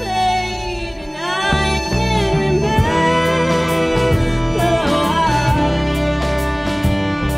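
Live indie-folk band playing, with bass, electric guitar, keyboard and violin under a woman's singing voice.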